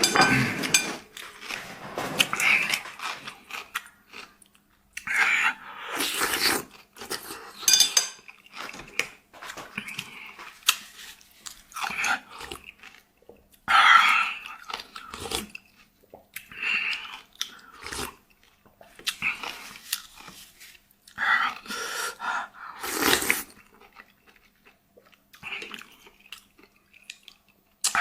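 A person eating close to the microphone, chewing and biting noisily in irregular bursts.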